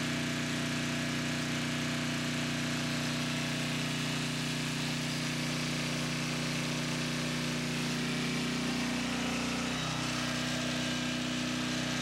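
Troy-Bilt portable generator's 6.75 hp Briggs & Stratton engine running steadily, with a low hum, while it powers an 18,000 BTU 230 V window air conditioner. About ten seconds in, the engine note shifts slightly.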